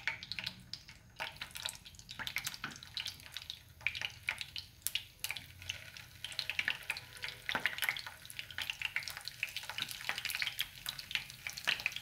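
Pork sausages frying in hot oil in a nonstick pan, sizzling with a dense run of irregular crackles and pops.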